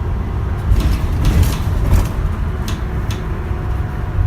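London bus in motion, heard from inside: a steady low rumble with a few short sharp rattles or hisses, clustered about a second in and twice more near three seconds.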